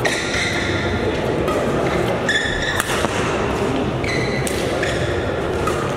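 Badminton rally: a few sharp racket strikes on the shuttlecock, a second or two apart, with short high squeaks of players' shoes on the court mat, over a steady murmur of spectators echoing in a large hall.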